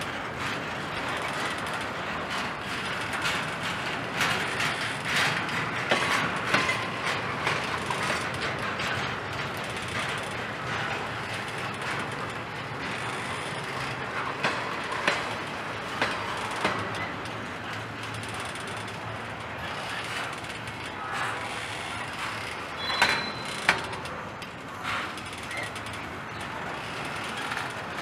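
Norfolk Southern double-stack intermodal train's container well cars rolling past: a steady noise of steel wheels on the rails with frequent clanks and clicks. A brief high squeal comes late on.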